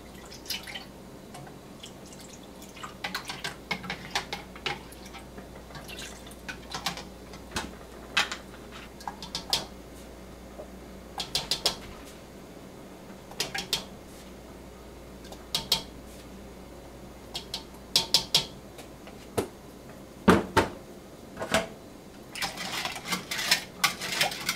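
Kitchen handling sounds while mixing a marinade in a plastic measuring jug: scattered clicks and knocks of bottles, caps and a spoon against the jug, with a run of quick spoon clinks near the end as it is stirred.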